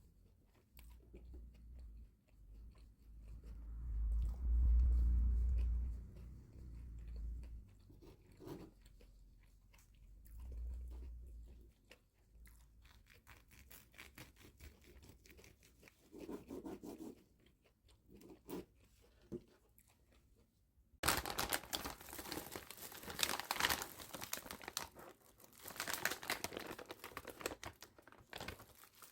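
Handling noises from cooking: scattered small clicks and soft low thumps. About two-thirds of the way in, a loud, dense crackling starts abruptly and carries on.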